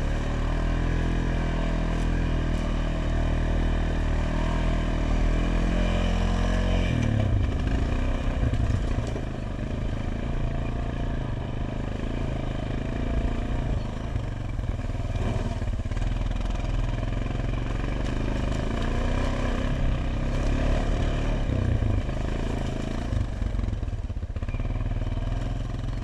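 ATV engine running under load in low gear on a steep hill climb. Its note is steady at first, then drops and turns less even about seven seconds in.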